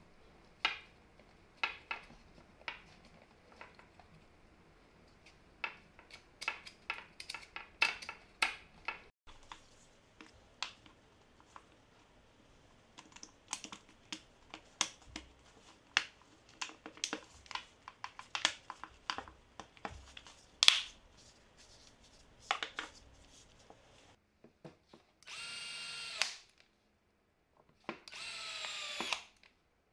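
Plastic housing parts of an impact driver clicking and knocking as they are handled and fitted together. Near the end, a power screwdriver runs in two whirring bursts of about a second and a half each, its pitch shifting as it drives the housing screws in.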